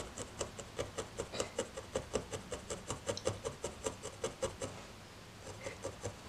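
A 38-gauge felting needle stabbing repeatedly into a wool felt piece to mark out where the eyes will go, about five quick soft pokes a second. The stabbing stops about three-quarters of the way through, with a few fainter pokes near the end.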